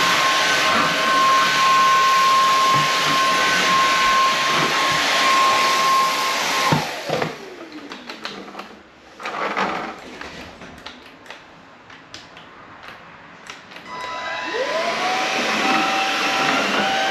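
Inse S610 cordless stick vacuum running with a steady high motor whine. About seven seconds in it is switched off and the whine falls away as the motor spins down. A few seconds of clicks and knocks follow, then near the end it is switched back on and the whine rises as the motor spins up.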